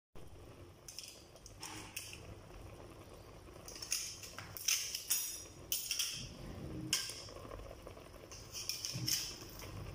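Scattered clinks and clicks of cookware at a pot of coconut-milk stew simmering on the stove, thickest in the middle and again near the end.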